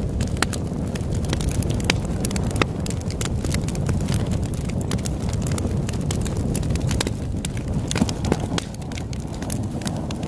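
Campfire crackling, with many irregular sharp pops and snaps, over a steady low rush of ocean waves.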